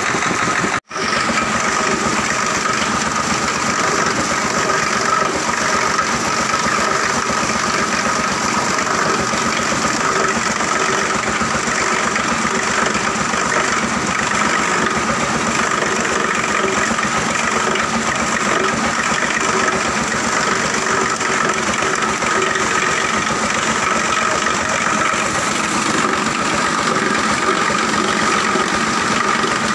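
Engine-driven plastic recycling machinery running steadily: a plastic grinder and washing line, with a steady high tone through the din. The sound cuts out for an instant about a second in.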